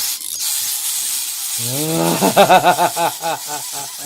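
Toy dinosaur's electronic sound effect: a hiss, then about a second and a half in a pitched, warbling animal call that rises, pulses several times a second and fades.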